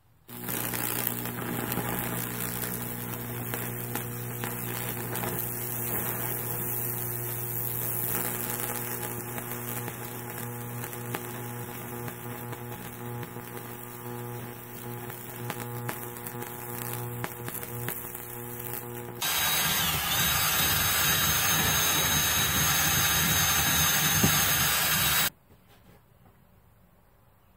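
High-voltage Lichtenberg fractal burner on a maple board: a steady electrical hum with crackling as the current burns its branching paths into the wood. About 19 seconds in it turns into a louder, harsher buzz for some six seconds, then cuts off suddenly.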